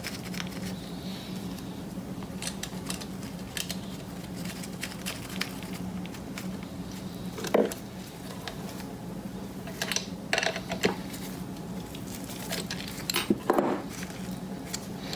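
Small metal clicks and taps as tooth washers and nuts are fitted by hand onto the cam chain tensioner studs of a Norton Commando timing case, with a sharper knock about halfway through and clusters of clicks near the end. A steady low hum runs underneath.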